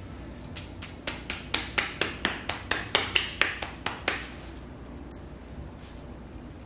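Gloved hand striking the sole of a bare foot in quick percussive massage strokes, about four a second for some three seconds, starting about a second in.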